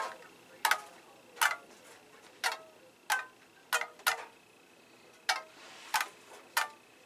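Small ukulele plucked one note at a time: about ten sparse, unevenly spaced notes, each a sharp pluck with a brief ring.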